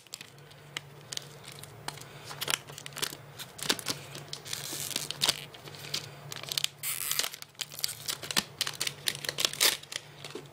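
Plastic protective wrapping being peeled and pulled off a new dock, crinkling and tearing in irregular crackles, with longer rustles about halfway through and again a little later.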